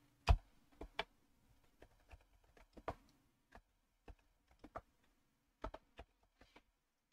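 Typing on a computer keyboard: a dozen or more separate keystrokes at an uneven pace, the loudest just after the start, with short pauses between bursts.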